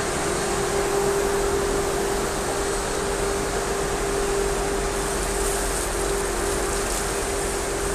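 Dog-wash station's handheld spray nozzle running water over a German Shepherd's wet fur, with the station's pump giving a steady hum underneath. The hiss of the spray grows brighter about five seconds in.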